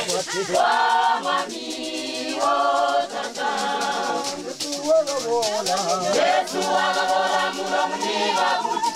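Choir singing a gospel song in harmony over a shaker keeping a steady beat.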